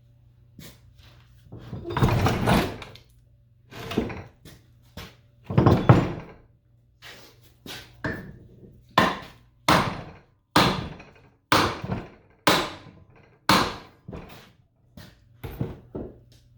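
Hammer blows on the gearbox shaft, knocking it back out of the housing: a steady run of sharp strikes about one a second, after two longer, louder noises earlier on.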